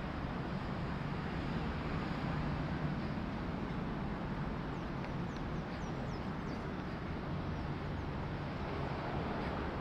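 Steady city street ambience: a constant low hum of traffic, with a few faint high chirps, likely from birds, around the middle.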